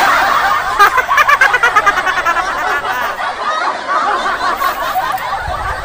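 Loud, continuous laughter that tails off slightly near the end.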